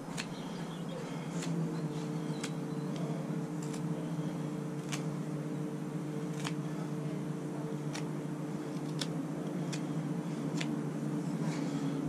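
Small everyday-carry knife blade cutting around the end of a dry wooden peg, short sharp clicks at irregular intervals about once a second as it bites and snaps off chips, over a steady low hum.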